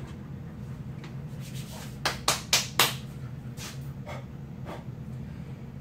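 Four quick, sharp hand claps about two seconds in, a few fainter ones after, over a steady low hum.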